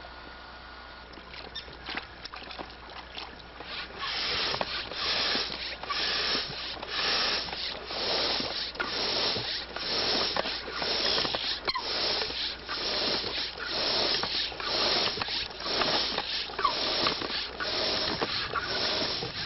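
Kayak paddle dipping into river water, a rhythmic splash and swish about three strokes every two seconds, starting about four seconds in and running evenly after that.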